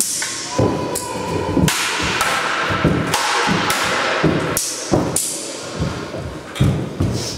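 Freestyle sparring with swords and round shields: a rapid, uneven run of sharp clacks and clangs as blades strike the shields and each other, with thuds of feet on a wooden floor. Some strikes ring briefly; one metallic ring is held for about a second near the start.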